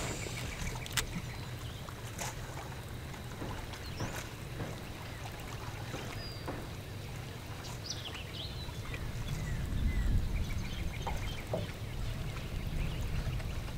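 Quiet open-air ambience aboard a small fishing boat: a steady low rumble with a few scattered light clicks and a couple of short high bird chirps. The low rumble swells about ten seconds in.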